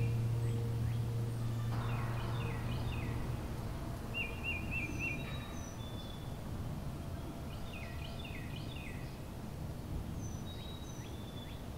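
Birds calling outdoors: a short repeated trill comes back every few seconds, with clusters of quick chirps and a few thin high whistles in between. Background music fades out in the first few seconds.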